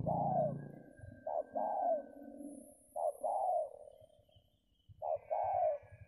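Spotted dove (tekukur) cooing: four two-part coos, each a short note followed by a longer one, repeated about every two seconds. A low rumble sits under the first coo.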